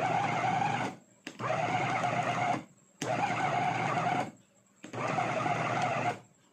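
Electric food-processor meat mincer run in short pulses: the motor whirs with its blades chopping meat for about a second at a time, four times, with brief pauses between.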